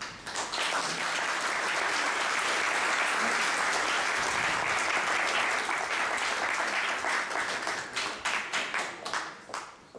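Audience applauding: many hands clapping at once, breaking up into scattered separate claps near the end before stopping.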